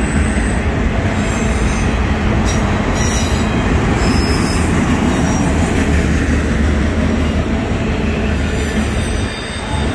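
Autorack freight cars rolling past: a steady, loud rumble of steel wheels on the rails, easing off slightly near the end.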